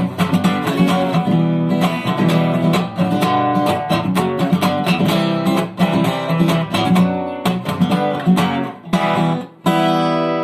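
Acoustic guitar strummed in a quick, steady rhythm. About nine and a half seconds in, a final chord is struck and left to ring out, fading slowly.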